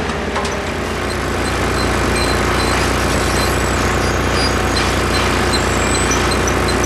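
Engine of a construction machine running steadily at an even pitch.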